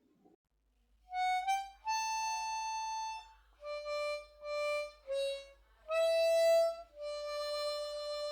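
Outro music: after about a second of quiet, a single wind instrument plays a short melody of separate notes, ending on one long held note with a slight waver.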